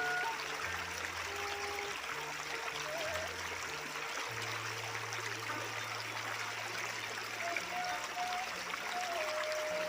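Shallow river water flowing over stones, a steady rushing and trickling. Soft background music with held bass notes plays underneath.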